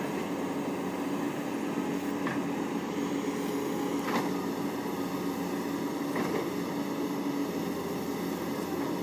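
Kobelco hydraulic excavator's diesel engine running steadily as it works its boom and arm, with a few faint knocks.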